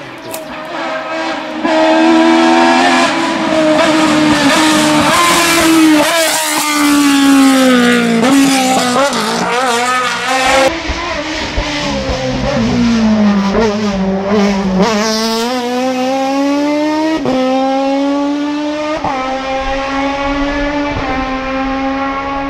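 Suzuki GSX-R1000 inline-four motorcycle engine in a race car revving very high, climbing in pitch through the gears with a brief break at each upshift. Partway through, the pitch falls as the car slows, then the engine screams up through the gears again.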